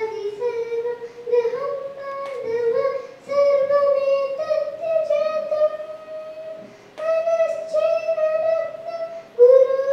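A young girl singing solo into a microphone, a slow melody of long held notes that step up and down, with short breaths between phrases.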